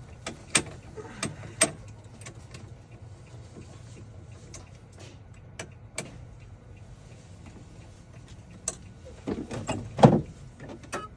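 Scattered sharp metallic clicks and taps from a locksmith handling a freshly cut key and tools, with a denser, louder burst of clicking and rattling about nine seconds in. A low steady hum runs underneath.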